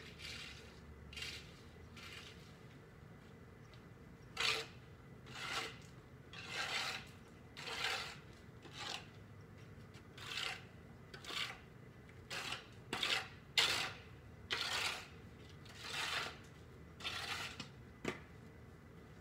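Repeated short scraping strokes, about one a second and growing more frequent after the first few seconds, over a faint steady low hum.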